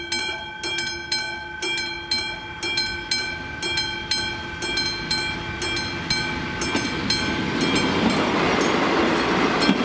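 Level-crossing warning bell ringing over and over, about two strikes a second. From about seven seconds in, a ČD class 814 diesel railcar arrives and crosses, and its running and wheel noise rises over the bell.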